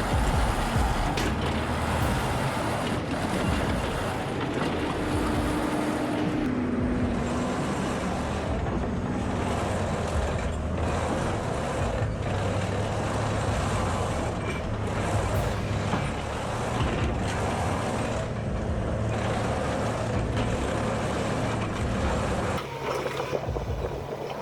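Heavy machine's diesel engine running steadily, with scattered knocks of machine work over it; the sound changes abruptly near the end.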